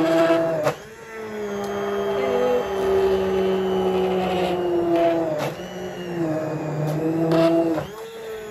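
Handheld immersion blender puréeing soft boiled papaya in a pot. Its motor whine dips and rises in pitch as the blade works through the fruit, and it cuts out briefly about a second in and again near the end.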